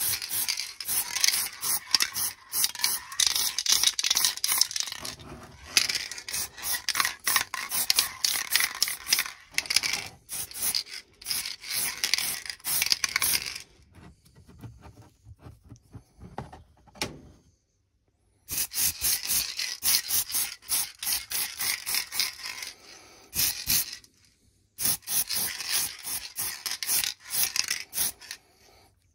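Aerosol can of hobby spray paint hissing in long bursts. It goes quiet for a few seconds past the middle and briefly again near the end.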